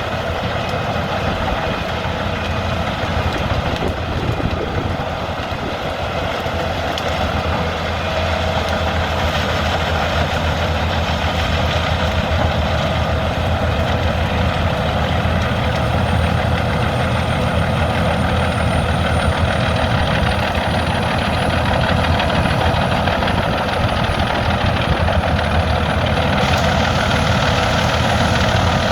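Albach 700 HP biomass wood chipper's engine running steadily and loudly. From about halfway a faint high whine creeps slowly upward in pitch.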